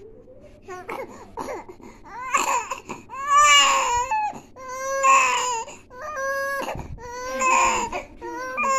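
Infant crying: a few small fussing sounds, then from about two seconds in a run of four or five loud wails with short breaks between them.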